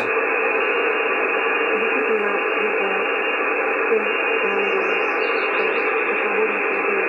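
Malahit DSP receiver's loudspeaker playing a weak AM medium-wave station on 1602 kHz: steady hiss and static with the station's audio faintly wavering just above the noise. The hiss is cut off sharply at its top end by the receiver's narrow AM filter.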